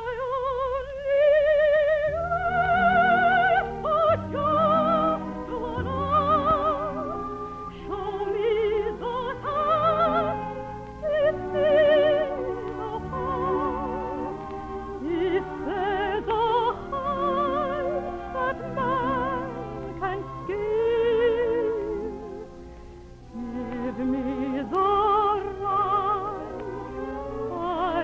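Operatic soprano singing a waltz song with a wide vibrato, over an orchestra.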